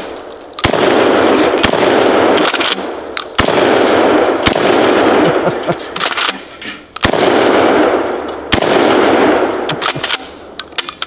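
DP-12 12-gauge double-barrel pump shotgun fired about five times, some shots in pairs about a second apart, each shot followed by a long echo. Short mechanical clacks of the pump action between shots and near the end.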